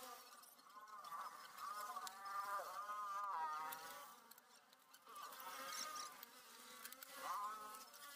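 A fly buzzing near the microphone, its faint whine wavering up and down in pitch. It comes and goes in a few separate passes.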